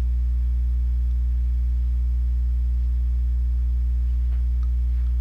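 Steady low electrical hum with a stack of even overtones, unchanging in pitch and level, typical of mains hum on the recording.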